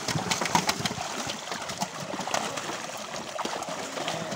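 Many fish thrashing at the surface inside a crowded net, a dense, irregular run of small splashes.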